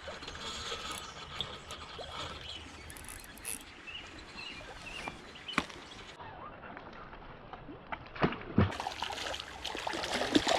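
Creek water running steadily, broken by a few sharp splashy clicks.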